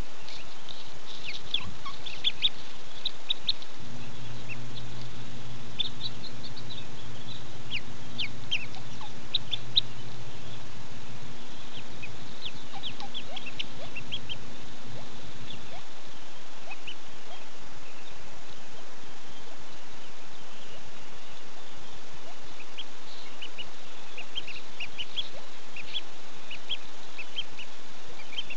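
Mallard ducklings peeping in the nest: many short, high peeps in clusters throughout, over a steady hiss. A low steady hum comes in about four seconds in and stops about twelve seconds later.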